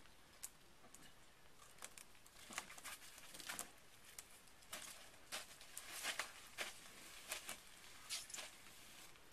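Faint, irregular rustling and crackling as someone moves about on dry leaf litter while handling a large curved sheet-material pontoon panel, thickest in the middle of the stretch.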